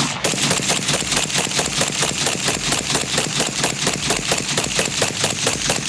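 Fully automatic gunfire: one long unbroken burst of rapid, evenly spaced shots.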